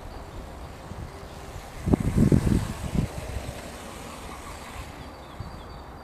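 1:10 scale RC rock crawler with motors on the axles, running as it climbs a dirt slope. About two seconds in there is a loud burst of low rumbling that lasts about a second.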